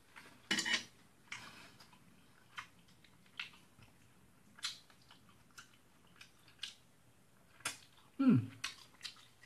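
Eating sounds: spaghetti slurped and chewed, with chopsticks clicking against a metal frying pan at irregular moments. Near the end comes a short vocal sound that falls in pitch, the loudest thing in the stretch.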